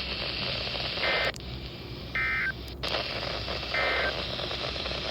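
Weather radio sending its EAS end-of-message data bursts: three short, buzzy two-tone digital screeches about a second apart, each about a third of a second long, over steady radio hiss. They mark the end of the alert.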